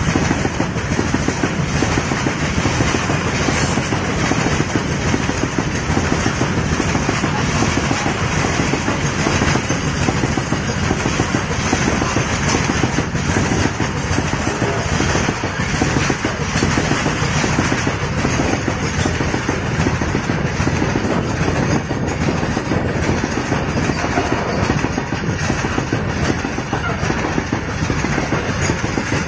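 Covered freight wagons of a long Indian Railways goods train rolling past at high speed on the adjacent track: a steady, loud rolling noise of wheels on rail with a continuous fine clatter.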